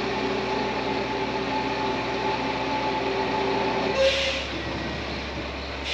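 Heavy lorry running with a steady droning whine while its tipping bed is raised. The whine stops about four seconds in with a short hiss of released air, and another hiss comes near the end.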